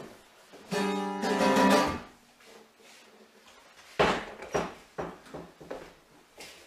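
Acoustic guitar strummed hard once about a second in, the chord ringing for about a second. Near four seconds comes a sudden loud hit, then a few fainter knocks.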